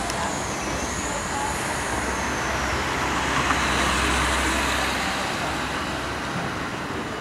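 Electric rack-railway railcar of the Monte Generoso line running slowly along street track: a steady low motor hum and rolling noise that swell to their loudest about four seconds in as it draws near. A thin high squeal glides down and up in pitch during the first three seconds.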